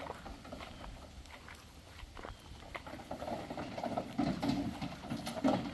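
Goats moving about: a patter of hoof taps and small knocks, getting busier and louder in the second half.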